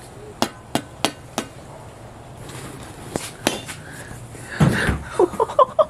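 A shovel whacks a hard, rotten lemon once, a loud dull impact about three-quarters of the way in, after a few light sharp clicks. It sends the lemon flying.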